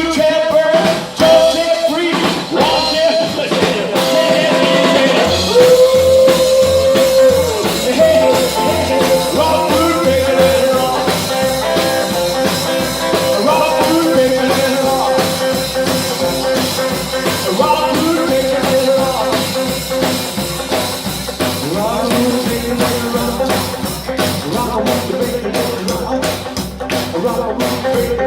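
Rockabilly band playing live, with a steady drum beat under the melody.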